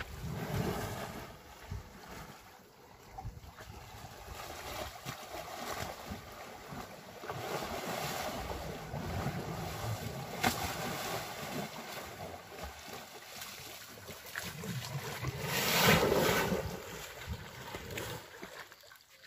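Water splashing and sloshing as two African elephants wrestle and roll in a shallow river, with one big splash near the end.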